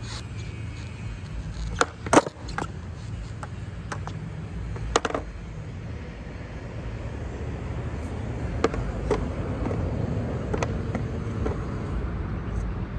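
Skateboard deck and wheels knocking and clacking on concrete a few times, the loudest about two seconds in and another about five seconds in, over a steady low background rumble.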